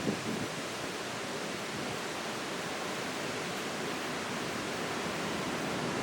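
Steady rush of river water pouring over and below a dam, an even hiss with no breaks.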